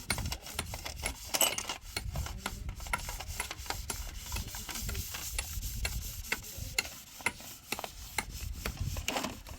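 Irregular small knocks and clicks over scraping and rubbing, like hand tools or materials being worked.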